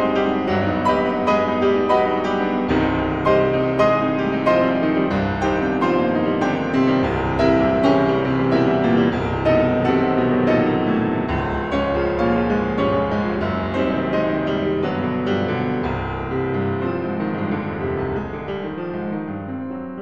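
Instrumental background piano music, a run of many quick notes, growing quieter over the last few seconds.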